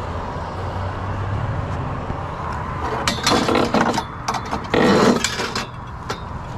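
Vehicle engine idling with a low hum, then from about three seconds in a run of loud metal clanks and rattles as scrap metal is handled, lasting a couple of seconds.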